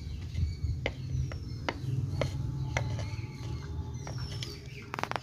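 A small metal garden tool digging and scraping through potting soil along the inside wall of a terracotta pot to loosen it. Scattered sharp clicks run through the digging, with a quick cluster of ticks near the end.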